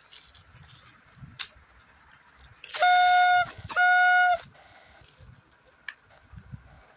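Two loud, steady horn honks, each under a second long, about a second apart.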